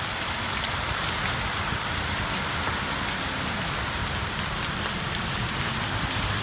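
Heavy rain pouring down steadily, with water running off the edge of a roof close by and drops spattering on the ground.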